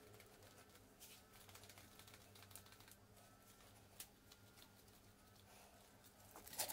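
Near silence: a faint steady low hum with scattered soft ticks and clicks, and one brief louder rustle shortly before the end.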